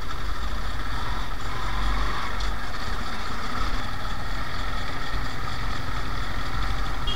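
Hero Honda Karizma R motorcycle's single-cylinder engine running steadily at low speed while climbing a rough dirt track, heard from a camera mounted on the bike.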